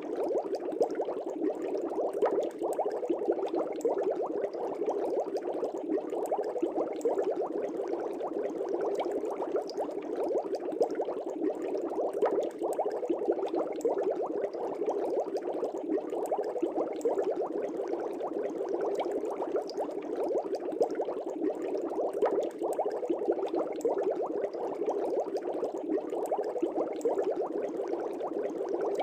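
Air bubbles streaming through the water of a fish tank: a steady, dense bubbling with many small pops throughout.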